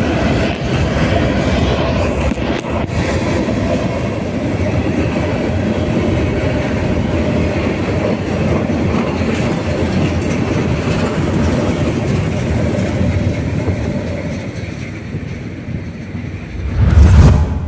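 Freight train of steel gondola cars rolling past at speed, a steady rumble of wheels on rail that fades as the end of the train goes by. A short, loud, low thump comes near the end.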